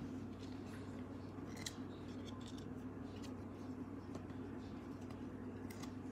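1992-93 Stadium Club basketball cards being slid off the stack and flipped by hand, the card stock giving a few short swishes and ticks over a steady low hum.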